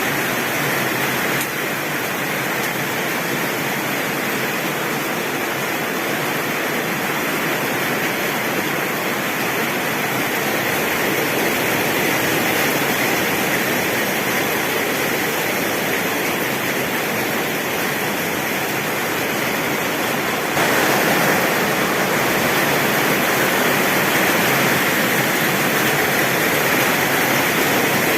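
Heavy rain pouring steadily on a tin roof: a dense, even hiss with no thunder. The rain gets abruptly louder about two-thirds of the way through.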